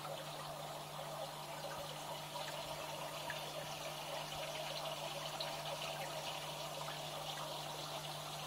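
Steady water trickling and splashing in an aquarium, with faint little ticks in it and a low steady hum underneath.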